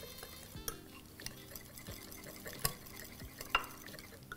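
Small wire whisk stirring a thick, hot gelatin mixture in a glass bowl, with scattered clinks and taps against the glass, two of them louder in the second half. This is the mixing between microwave heatings so the gelatin hydrates fully.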